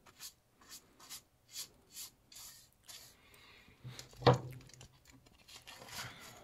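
A wide paintbrush's bristles sweeping across the paper floor lining of a chipmunk cage in short scratchy strokes, about two a second. One loud knock comes a little over four seconds in, followed by soft paper rustling.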